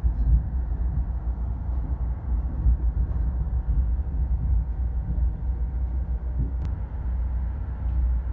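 Steady low rumble of a Caltrain passenger car rolling along the track, heard from inside the car, with one sharp click about six and a half seconds in.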